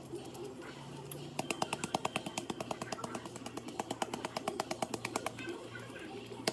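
Old Bay seasoning can shaken rapidly over fish, the spice rattling against the shaker lid in quick rhythmic clicks, several a second. The shaking starts about a second and a half in.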